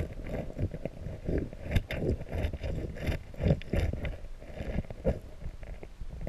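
Wading boot scuffing and knocking against the stones of a riverbed, heard underwater through the camera's housing: irregular scrapes and knocks, several a second.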